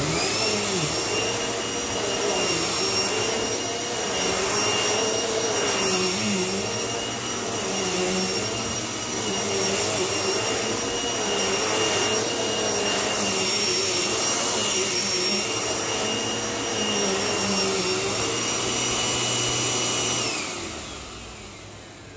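Eureka The Boss upright vacuum cleaner, with a freshly replaced belt and brushroll, running on carpet: a very loud rush of air under a steady high whine. It starts at the beginning with the whine rising as the motor spins up. About twenty seconds in it is switched off and the whine falls away as the motor winds down.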